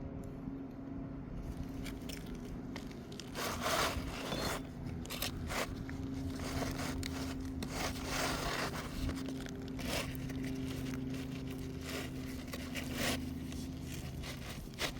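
Irregular scraping and crunching of an asphalt shingle being handled and fitted on a roof, over a steady low hum.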